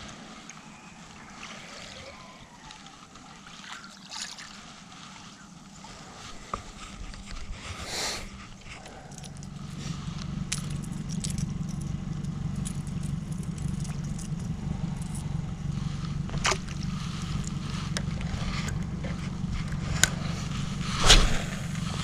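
A boat's motor comes on about nine seconds in and runs steadily as a low hum, over faint water sloshing, with several sharp knocks and clicks, the loudest near the end.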